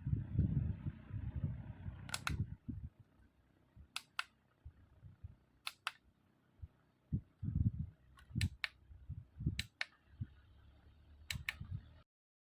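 Sharp plastic clicks, mostly in quick pairs every one to two seconds, as buttons on the fan or its remote are pressed, with low bumps from handling. The sound cuts off suddenly near the end.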